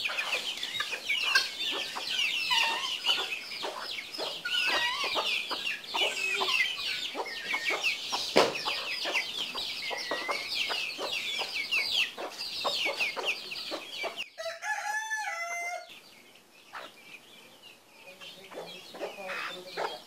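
Many guinea fowl keets peeping continuously as they feed, a dense stream of short high chirps, with clucking from the mother hen. A sharp knock comes about eight seconds in, and one longer wavering call from an adult bird about fourteen seconds in, after which the peeping thins out.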